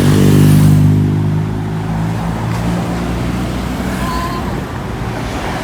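A road vehicle's engine running close by, a low hum that is loudest at first and then slowly eases off and drops in pitch.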